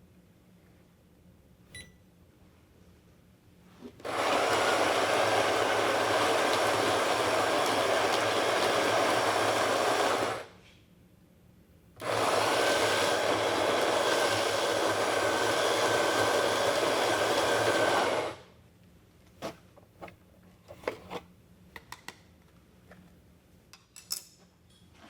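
Electric coffee grinder grinding espresso beans in two runs of about six seconds each with a short pause between, then a few light taps and clicks.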